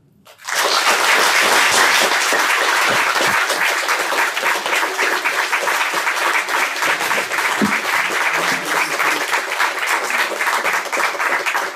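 Audience applauding, starting about half a second in and going on steadily as a dense patter of many hands clapping.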